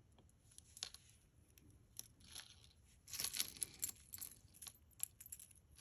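Faint rustling and light clicks of earrings and their packaging being handled, with a longer rustle about three seconds in.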